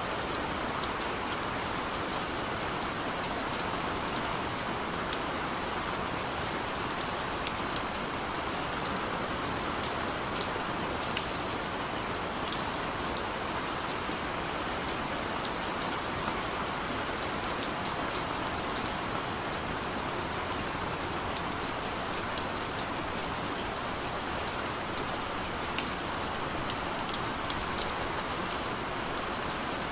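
Steady rain falling on a surface, an even hiss with scattered individual drop taps.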